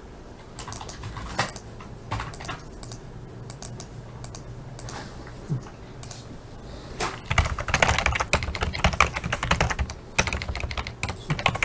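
Computer keyboard typing: scattered keystrokes at first, then a fast, steady run of typing from about seven seconds in.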